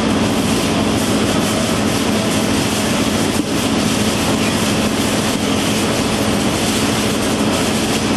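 Green pepper sorting machine running: geared electric motors and conveyor in a steady, loud mechanical din with a low hum and a constant fast rattle.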